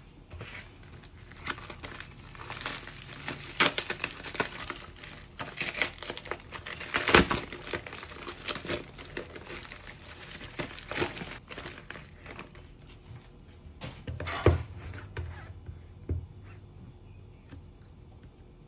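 Plastic bubble mailer crinkling and crackling as it is handled and opened, with a few sharper crackles and a dull thump about three-quarters of the way through; the crinkling dies down near the end.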